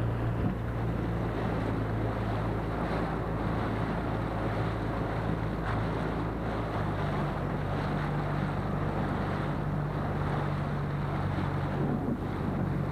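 Outboard motor of a small skiff running steadily under way, with wind buffeting the microphone and water rushing along the hull. The motor's tone shifts slightly about six and a half seconds in.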